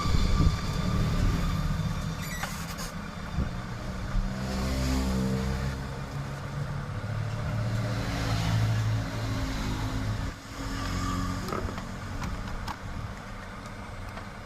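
Low engine rumble of motor vehicles, rising and falling as they pass, with a few light clicks.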